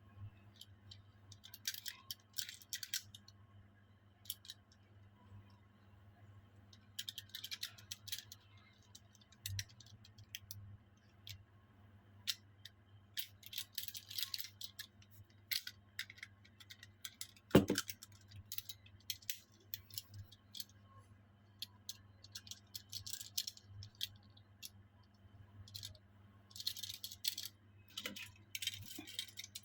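Tomica die-cast toy cars and their small cardboard boxes being handled during unboxing: scattered clicks, rattles and rustles in short clusters, with one sharper knock about halfway through, over a steady low hum.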